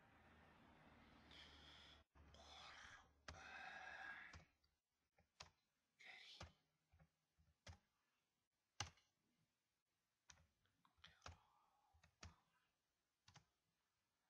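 Faint computer keyboard keystrokes, sparse and irregular, about one click a second. A soft breathy hiss fills the first few seconds.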